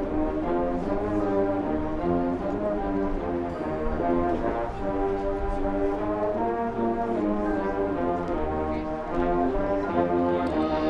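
Marching band brass section playing full, held chords that change about every half second to a second.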